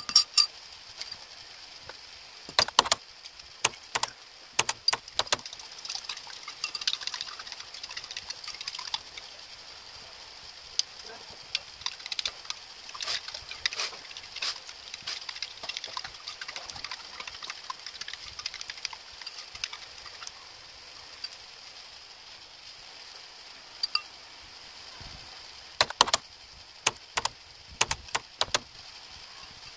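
Metal spoon clinking and scraping against a ceramic bowl as beaten egg is stirred: scattered sharp clicks, a dense run of lighter taps in the middle and another cluster near the end. A faint steady high-pitched whine runs underneath.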